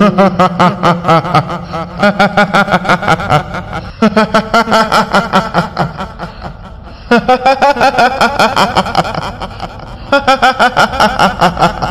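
A woman's high-pitched cackling laugh, "hihihi", performed as the laugh of a kuntilanak ghost, in four runs of rapid bursts over a low drone.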